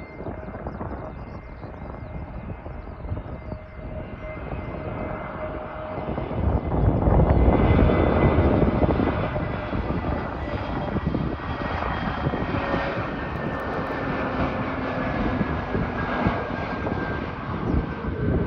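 SAS Airbus A320-251N jet on landing approach, its CFM LEAP-1A turbofan engines producing a loud rumble. The noise swells to its loudest about seven to nine seconds in, then eases, while a steady engine whine slowly falls in pitch.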